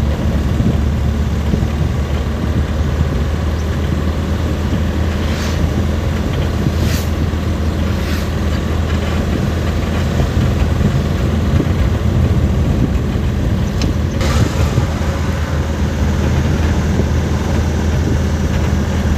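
Truck engine and road noise heard from inside the cab while driving at a steady speed: a constant low drone, with a few brief rattles or clicks around five to eight seconds in and again about fourteen seconds in.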